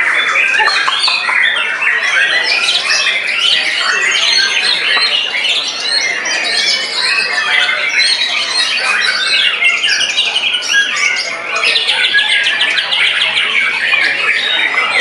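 White-rumped shamas singing competitively, several birds overlapping in a dense, varied stream of song. A fast repeated chattering run comes near the end.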